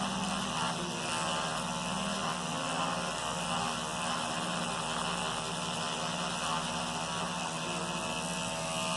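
Battery-powered electric toothbrush buzzing steadily as it scrubs toothpaste over a scratched watch crystal to polish it.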